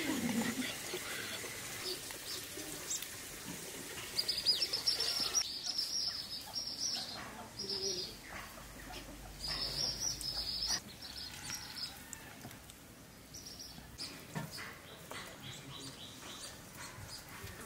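Birds chirping in a run of high, buzzy bursts about half a second to a second long, thickest from about four seconds in to about eleven seconds in, then fainter scattered chirps.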